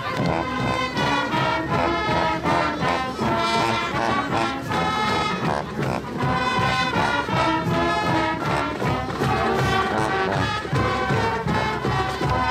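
A high school marching band playing a school fight song: brass melody in block chords over steady marching percussion.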